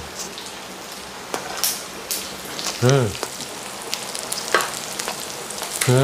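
Pork sizzling steadily on a grill pan, with scattered small clicks. About three seconds in there is a short hummed "mm" from the eater.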